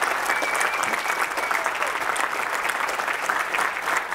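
Audience applauding: a dense, steady clapping that keeps an even level throughout.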